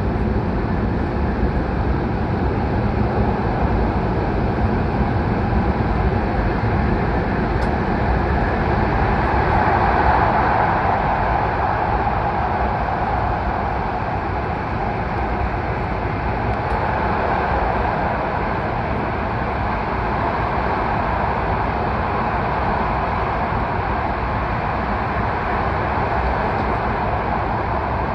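H5 series Shinkansen train running at speed through the Seikan Tunnel: a steady rumble of wheels and rushing air, heard from inside the train, swelling slightly about ten seconds in.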